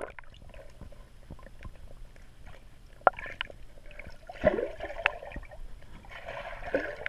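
Swimming-pool water heard through a camera held underwater: bubbling and gurgling as swimmers move past, with a couple of sharp clicks, about 3 and 5 seconds in.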